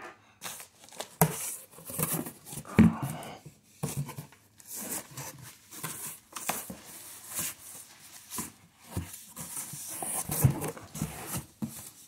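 Cardboard shipping box being opened by hand: packing tape tearing off, cardboard flaps scraping and knocking, and plastic air-cushion packaging crinkling, in irregular rustles and sharp knocks.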